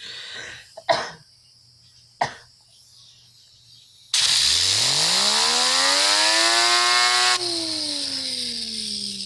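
A few handling clicks, then about four seconds in a hissing blast of air drives a hand-held fidget spinner, whose whir rises quickly in pitch as it speeds up. About seven seconds in the air stops, and the spinner's whir goes on alone, slowly falling in pitch as it spins down.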